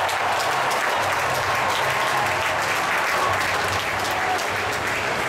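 Large arena crowd applauding at the end of a volleyball rally, a dense, steady patter of many hands clapping.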